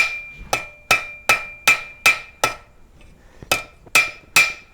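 Hand hammer striking hot steel on an anvil at a steady pace, each blow with a bright anvil ring. There are two runs of strikes with a pause of about a second between them. These are half-on, half-off blows at the anvil's edge, forging a set-down.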